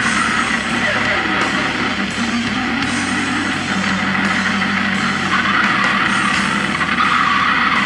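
Loud, dense extreme heavy music from an underground cassette release: a steady, unbroken wall of noisy sound with no pauses.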